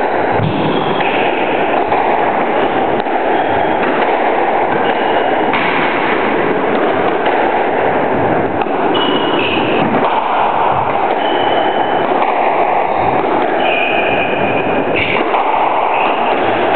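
Squash rally under a loud steady hiss: dull thuds of racket on ball and ball on the walls, about one every second or so, with short squeaks of court shoes on the wooden floor.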